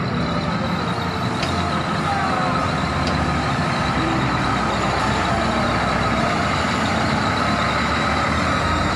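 Diesel engine of a large coach bus running steadily as the bus pulls slowly away.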